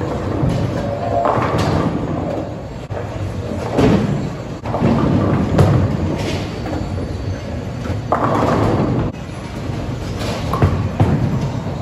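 Bowling alley din: balls rumbling down the lanes with several sharp crashes of pins being struck.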